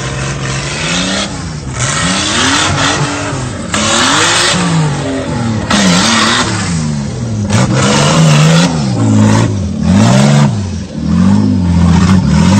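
Off-road 4x4's engine revving up and down over and over, its pitch rising and falling every second or two, with loud bursts of hiss on top.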